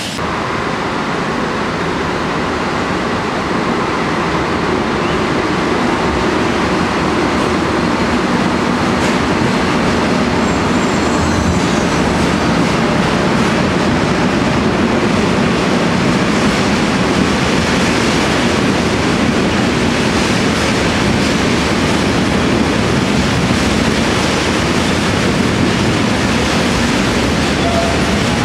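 Freight train wagons rolling past, a steady rumble and rattle of wheels on rails.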